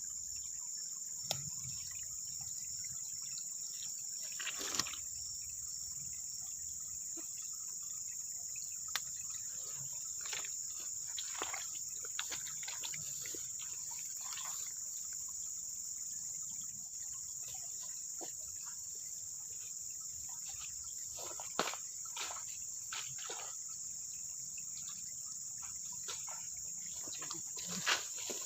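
A steady, high-pitched chorus of insects such as crickets, with scattered faint clicks and taps over it, a sharper one about five seconds in and a few more near the end.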